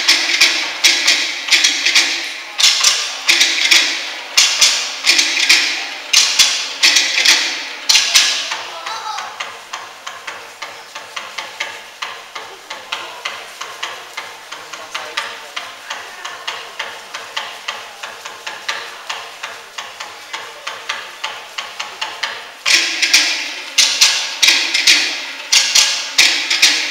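Fast rhythmic percussion of sharp wooden knocks. It is loud and dense at the start and again from about 23 seconds in, with a quieter stretch of steady knocks in between.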